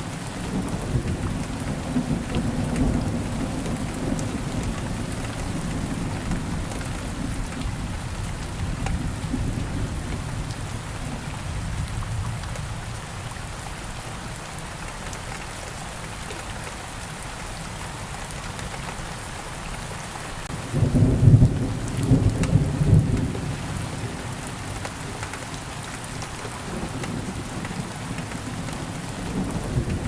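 Steady rain falling with thunder: a low rumble through the first part fades away, then a sudden loud thunderclap about two-thirds of the way in rumbles on for a few seconds.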